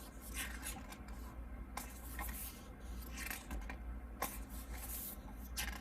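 Paper pages of an album lyric book being turned, a soft swish or rustle every second or so.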